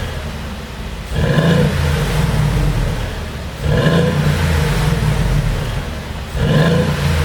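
Mercedes-AMG GLC 63 S's twin-turbo V8 revved three times, about a second, three and a half seconds and six and a half seconds in. Each rev falls away into exhaust pops and crackles from a pop-and-crackle tune.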